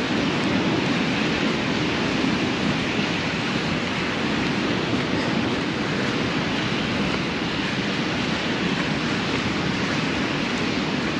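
Steady rush of ocean surf breaking on a beach, mixed with wind on the microphone.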